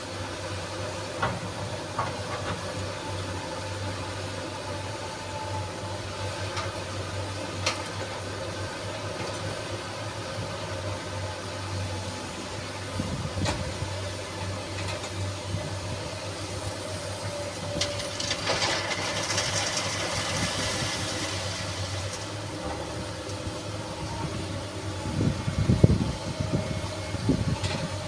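SANY SY215C hydraulic excavator running steadily while working sand. There are a few sharp clicks, a hissing rush about two-thirds of the way in, and a cluster of low thumps near the end.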